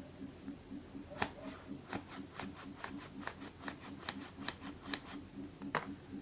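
Folded paper rustling in a run of short, regular strokes, about two to three a second: an origami flapping bird's wings being worked back and forth.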